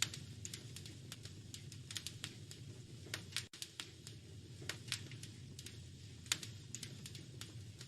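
Wood fire crackling in a fireplace: irregular sharp pops and snaps over a low, steady background noise, with a brief break in the sound about halfway through.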